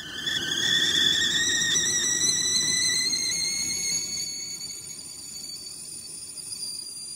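Stovetop kettle whistling at the boil: one high, steady whistle that creeps slightly upward in pitch and slowly fades in the second half.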